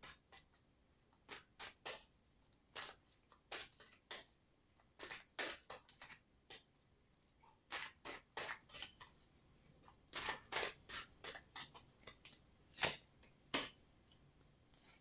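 Tarot deck being shuffled by hand: an irregular run of short card flicks and slaps, with two louder snaps near the end.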